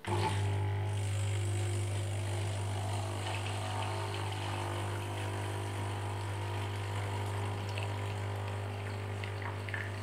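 Xiaomi SCISHARE capsule espresso machine brewing: its pump runs with a steady low hum from the moment it starts, with a light hiss of coffee streaming into a glass cup.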